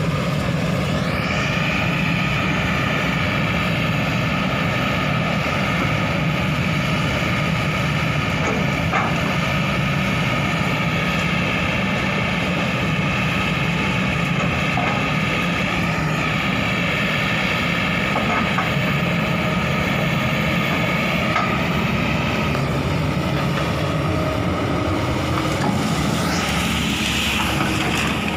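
Kobelco SK200 excavator's diesel engine running steadily, with a high hydraulic whine over the low engine drone that shifts in pitch a few times.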